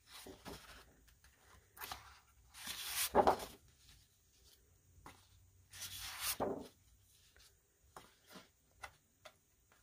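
Large sheets of patterned scrapbook paper being flipped and slid over one another, a few soft paper swishes, the loudest around three and six seconds in, with light taps near the end.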